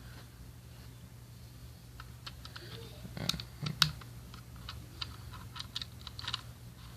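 Small metal screws clicking and tapping against a 2.5-inch SSD and its drive mount as they are fitted by hand: a scattered run of light clicks, with two louder ones near the middle, over a low steady hum.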